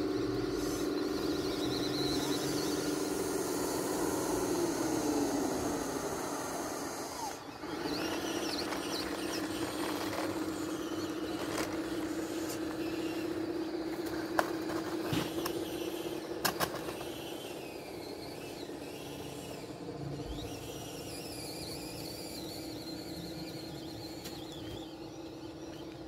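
Electric drive motors and gearing of a radio-controlled D11 model bulldozer on a 7.4 V battery, whining steadily as it tracks over dirt. The whine slides down in pitch about five seconds in and comes back steady a couple of seconds later. A few sharp clicks sound in the middle.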